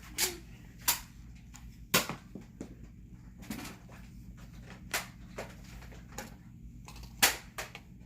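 Nerf foam-dart blasters firing, with irregular sharp snaps and knocks of darts being shot and striking things; the loudest comes about seven seconds in.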